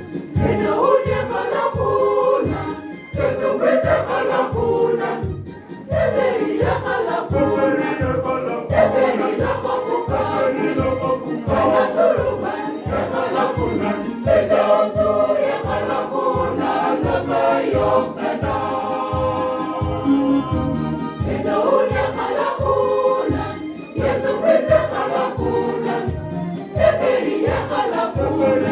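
Choir singing a Christmas carol over a steady low beat of about two strokes a second.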